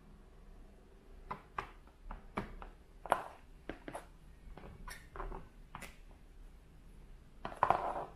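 Scattered light clicks and taps of plastic kitchen tools, a small plastic lemper mould and a plastic rice paddle, being handled while sticky rice is packed, with one louder clatter near the end.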